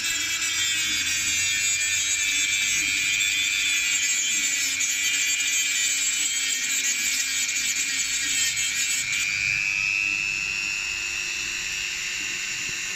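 Hand-held Mannesmann 130 W rotary tool with a small cutting disc running at high speed and grinding at the edge of a motorcycle engine's metal side casing, a steady high whine. About nine to ten seconds in the whine steps slightly higher and a little quieter.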